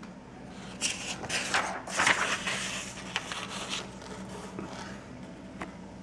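Handling noise: a few soft scrapes and rustles in the first three seconds or so, then quieter, over a faint steady low hum.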